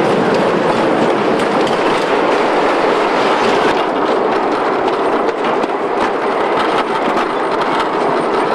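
Wooden roller coaster train running on its track, heard from on board: a steady rumble with irregular clicking and rattling.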